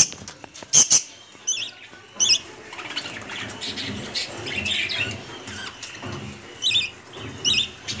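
Budgerigars chirping and squawking in short, sharp calls scattered through, with paired calls near the end; a few sharp clicks about a second in.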